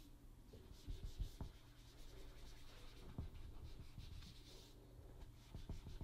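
Faint rubbing of a cotton pad working oil paint across matte photo paper, with a few soft low knocks about one second in and again about three seconds in.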